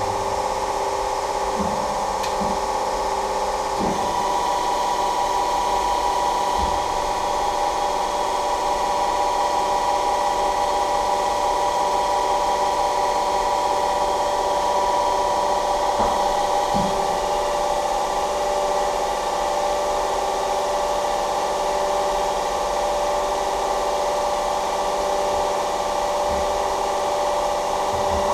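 Special rolling machine KZh1844 running, a steady mechanical whine with several held tones and a few short knocks about 4 and 16 seconds in.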